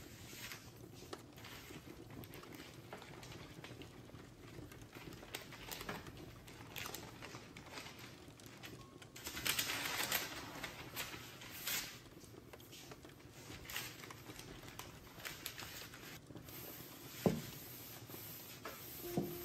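Soft pats, taps and paper rustling from hands working biscuit dough on baking paper, with a denser stretch of rustling about ten seconds in. Near the end a wooden rolling pin rolls over the paper, with one sharp knock.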